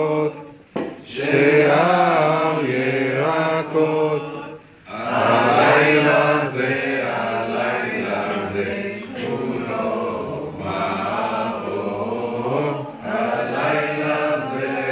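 Voices singing a Hebrew Passover seder melody in a chant-like tune, with short breaks about a second in and again about four and a half seconds in.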